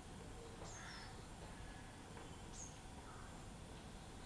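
Faint bird chirps over quiet low background noise: two short, high, falling chirps, one about a second in and another past halfway.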